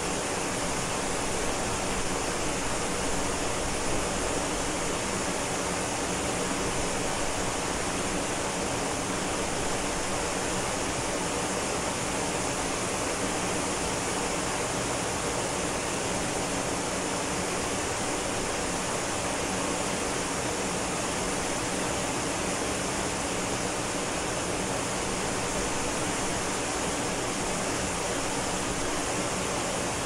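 Ōko Falls, a tall waterfall on Yakushima, falling into its rock plunge pool: a steady, unbroken rush of water, full from deep rumble to high hiss.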